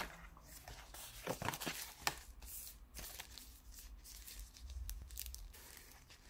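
Faint rustling and crinkling of packaging being handled: a cardboard insert shifted and a small cleaning-cloth wrapper torn open, in short, irregular scrapes.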